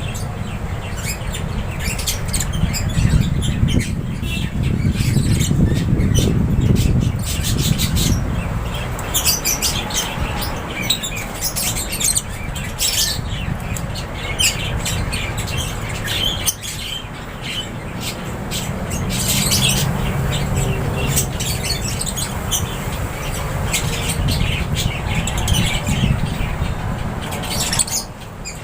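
A flock of lovebirds chirping and squawking over one another without a break, many short high-pitched calls at once, over a steady low rumble.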